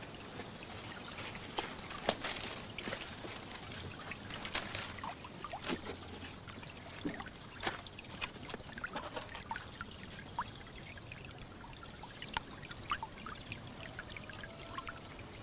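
Small stream trickling and babbling, with scattered small splashes and plops.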